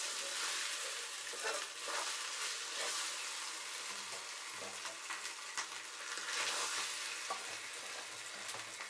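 Corn rice sizzling as it fries in hot oil with onion and chillies in a metal pot, a steady hiss. A metal spoon scrapes and turns it in the pot at first, with a few short clicks of spoon on metal scattered through.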